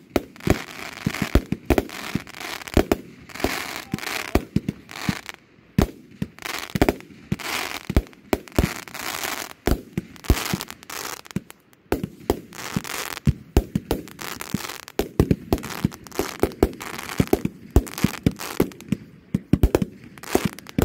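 A multi-shot consumer firework cake firing: a quick run of sharp bangs from the tubes launching and the shells bursting, several a second, with a hiss between them. There are short lulls about six and twelve seconds in.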